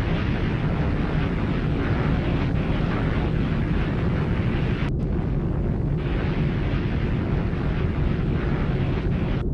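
Deep, continuous rumble of nuclear test explosions from archival test footage, in clips cut together, with a sharp break about five seconds in where one clip gives way to the next.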